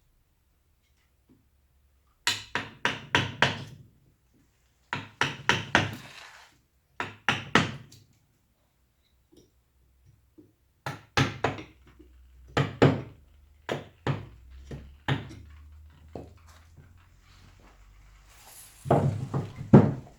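Wood carving: a mallet driving a carving chisel into wood. The knocks come in runs of several quick strikes, separated by short pauses.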